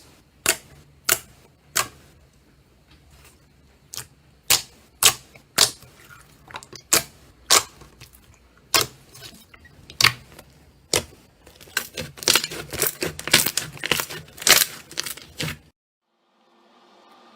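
Slime being pressed and poked, giving sharp popping clicks about one or two a second, then a quick run of crackling pops that cuts off suddenly near the end; a faint steady hiss follows.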